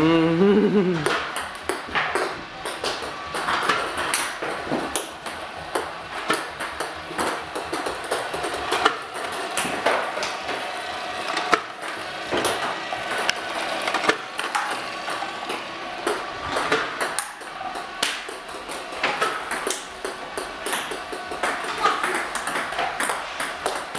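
Ping-pong balls clicking in a steady, irregular stream as an iPong robot feeds them across a table-tennis table and a child returns them with a paddle: light hollow bounces on the tabletop and paddle hits, several a second.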